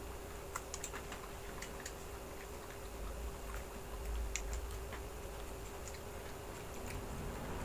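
Scattered light clicks and ticks of eating at a table, as fingers pick fried meatballs off a plate, over a faint steady hum.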